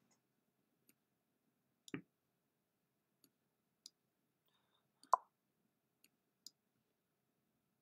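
Faint, scattered clicks and taps against near silence, about seven in all, the loudest about two and five seconds in.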